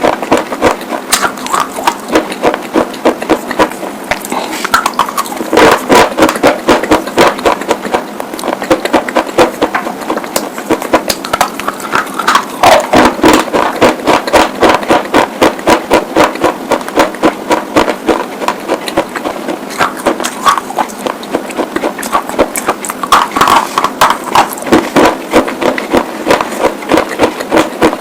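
Close-miked chewing of brittle white slate pencils: rapid, loud crunching, several crunches a second.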